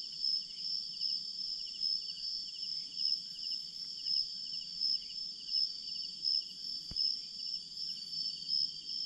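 Night insects chirring in a steady high chorus that pulses about twice a second, with one sharp click about seven seconds in.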